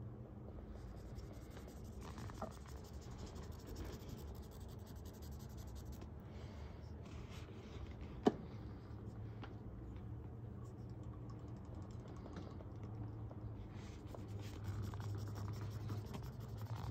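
Ink-wet cotton swab rubbing and scratching on paper as ink swatches are painted in short strokes, with a single sharp click about eight seconds in.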